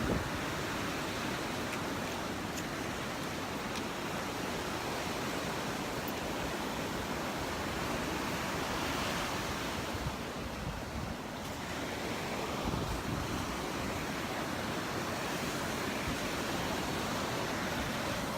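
Gulf surf breaking and washing up the beach in a steady rush that swells and eases, briefly quieter about ten seconds in, with wind buffeting the microphone.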